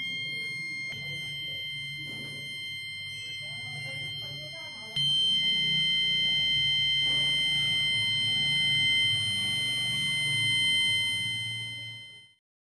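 Piezo buzzer of a homemade rain-alarm circuit sounding one steady high-pitched tone: the alarm signalling that water is on the rain sensor. It gets louder about a second in and again about five seconds in, then cuts off near the end.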